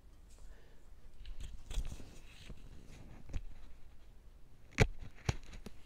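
Faint rustling and handling of a cloth face mask and its elastic band as it is pulled on over the head, with two sharp taps about half a second apart near the end.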